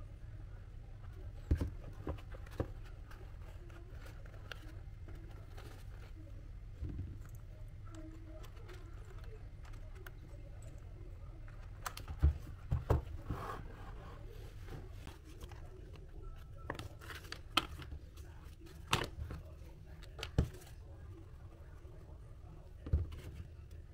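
Scattered taps, clicks and rustles of cardboard being handled and worked by hand, over a steady low hum.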